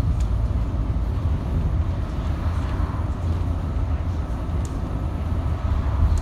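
Double-decker bus engine and road noise heard from the upper deck while cruising: a steady low rumble with a faint steady whine and a few light rattles.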